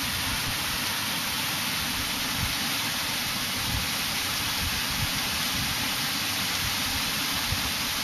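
Runoff water pouring from a culvert pipe and splashing into a pool: a steady rushing hiss.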